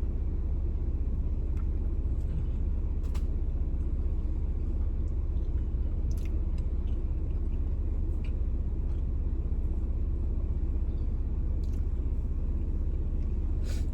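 Steady low rumble of a car's running engine heard from inside the cabin, with a few faint clicks scattered through it.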